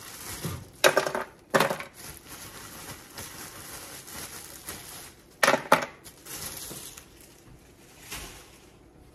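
Pieces of chopped bell pepper dropped by hand into an electric roaster pan in three short bursts, about a second in, a moment later, and again past the middle.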